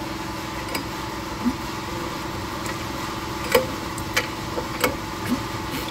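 A steady low hum with about six light, sharp clicks scattered through it, three of them about two-thirds of a second apart in the second half.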